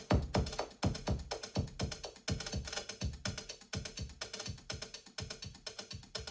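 Music played through Endway Gota 1 loudspeakers and picked up in the room: a sparse percussion passage of dry knocks and clicks, several strikes a second, each dying away quickly, with no vocals.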